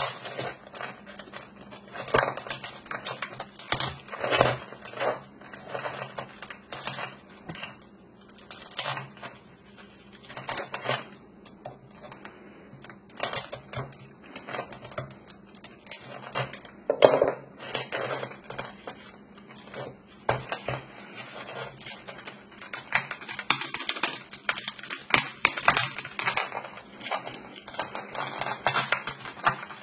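A knife and hands working at a hardened block of sponge-like foam: irregular scraping, crunching and clicking, with one louder crack about 17 seconds in.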